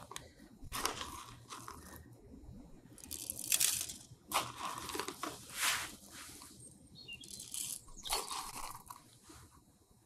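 Bag of whole coffee beans being opened and handled, crinkling and rustling in a series of short bursts as the beans shift inside.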